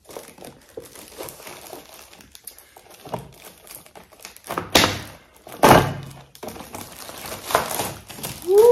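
Packaging being unwrapped and handled: light crinkling and rustling, with two sharp knocks about a second apart around the middle and a softer one a little later as the items are set down or bumped.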